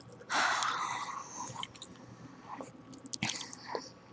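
Close-miked gum chewing: wet mouth smacks and sharp clicks, with a longer hiss about half a second in.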